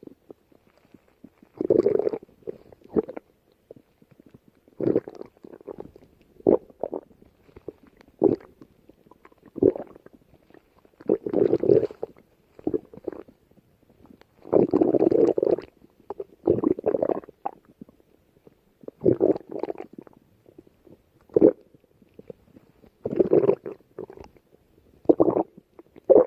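Stomach growling: a string of short growls at irregular intervals, each up to about a second and a half long, with brief quiet gaps between them.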